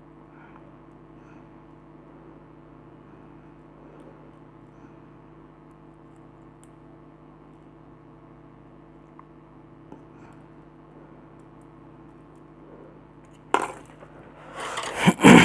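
A faint, steady electrical hum, then near the end a sharp click followed by a loud clatter of hard objects being handled.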